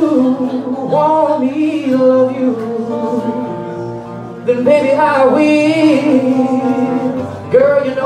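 A man singing a ballad while strumming an acoustic guitar. Sung phrases with long held notes come over the steady guitar chords.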